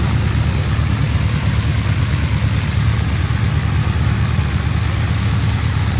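SF-260 light aircraft's engine idling steadily on the ground, a low, even running note with a fast pulse.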